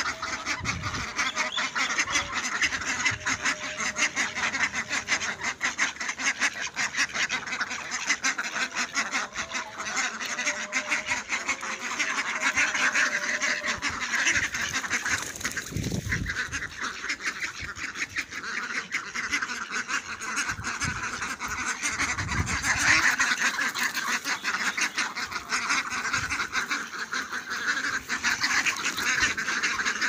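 A flock of domestic ducks quacking, with many rapid calls overlapping without pause. A brief low thump comes about halfway through.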